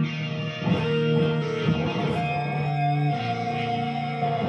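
Electric guitar played as a lead line of single notes, with one high note held for about two seconds from around the middle.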